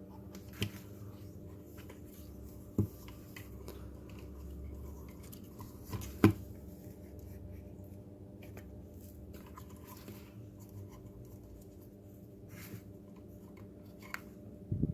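Hands working with small plastic robot-kit parts and cables: faint handling noise with a few sharp clicks, the loudest about six seconds in, over a steady low hum.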